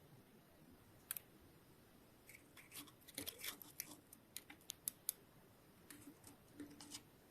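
Faint, irregular light clicks and taps, as small hard parts are handled.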